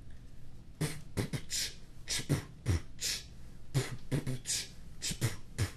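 Beatboxing: a mouth-made beat of low kick-drum thumps and short hissing hi-hat sounds, starting about a second in and repeating as a steady rhythm.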